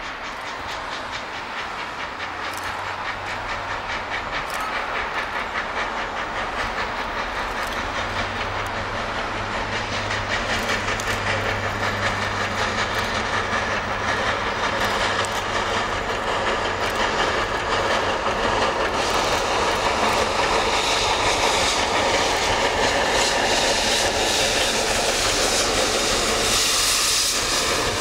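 A 2-6-2T steam tank locomotive, Quincy Railroad #2, working toward the listener with its exhaust and running gear growing steadily louder as it approaches. From about two-thirds of the way in, a rising hiss of steam venting from its open cylinder cocks joins it.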